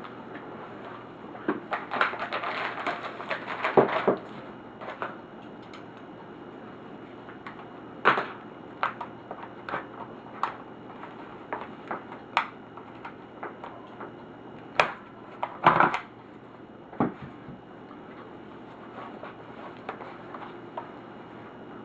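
Scattered clicks and knocks of a laptop's plastic and metal parts being handled during disassembly, with a burst of rattling clatter about two seconds in and another quick cluster of knocks in the middle, over a faint steady hum.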